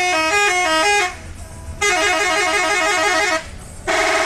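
Bus 'telolet' horn, a multi-tone musical horn, sounding in loud blasts. The first plays a stepping little tune that ends about a second in, the second is a fast warbling alternation of notes, and a held chord starts near the end.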